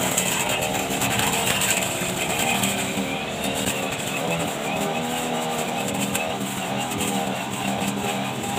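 Backpack brush cutter's small petrol engine running steadily as its head sweeps through lawn grass.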